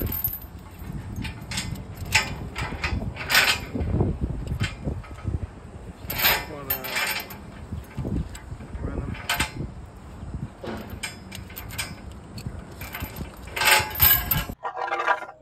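Steam locomotive SP 786's original driving wheels and running gear rolling slowly along the rail, pushed by a telehandler: a low rumble with irregular metallic clanks, knocks and squeaks. It cuts off abruptly shortly before the end.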